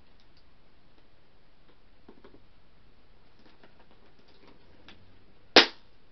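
Quiet handling of a plastic toy container with a few faint clicks, then one sharp plastic snap about five and a half seconds in.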